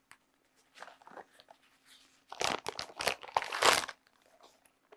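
Clear plastic bag crinkling as a camera wrapped in it is handled and lifted out of a padded case. A few soft rustles come first, then louder crinkling about two and a half to four seconds in.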